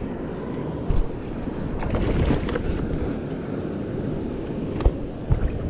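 Wind noise on the microphone over ocean water sloshing against a kayak hull. A few knocks stand out, one about a second in and two near the end.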